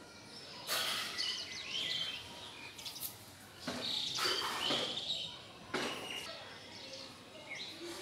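House sparrows chirping in a few bursts of short, sweeping calls over steady background noise.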